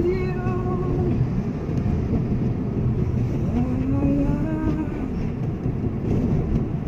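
Mitsubishi Mirage on the move, heard from inside the cabin: a steady rumble of engine and road noise, with a pitched tone that rises briefly about halfway through.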